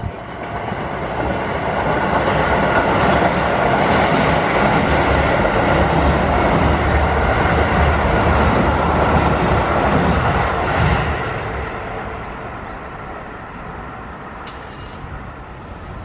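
Keio Line electric train passing over the level crossing: the rumble of the wheels builds over the first few seconds, stays loud for about eight seconds and fades away. The crossing's warning bell rings steadily behind it.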